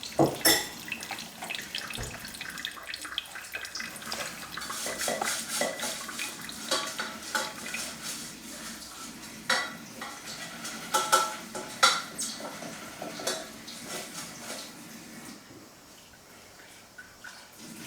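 Cheap drip filter coffee machine brewing plain water through a paper filter: water spitting and trickling into the glass jug, with scattered small clicks and clinks, easing off after about fifteen seconds as the water runs out.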